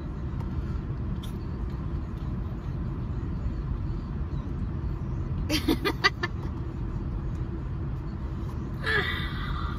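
Steady low rumble of a car idling, heard from inside the cabin. A short vocal murmur comes about halfway through, and another brief vocal sound near the end.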